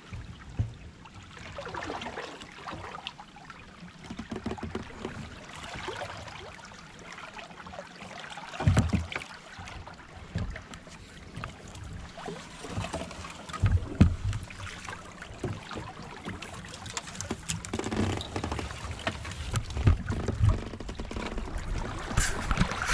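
Kayak paddle strokes and water splashing as a kayak is worked hard through a river obstacle, with several dull thumps scattered through.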